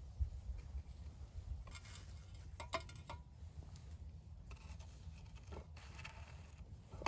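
Light clicks and knocks of a steel knife and bread on a wooden cutting board: a short run of ticks about two to three seconds in, then soft scraping and rustling as a slice of bread is pressed down onto jam-spread toast. A low rumble runs underneath.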